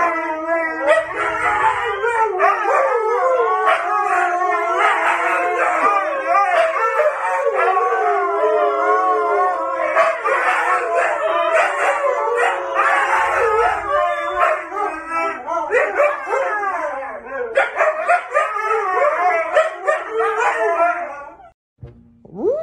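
Several Siberian huskies howling together, many voices overlapping in long wavering, gliding pitches. The chorus cuts off abruptly near the end.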